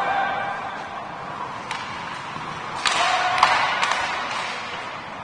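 Ice hockey play echoing in a rink: a short shout at the start, a click about a second and a half in, then a sharp bang of puck or stick against the boards about three seconds in with a rush of noise, and two quicker clicks of sticks just after.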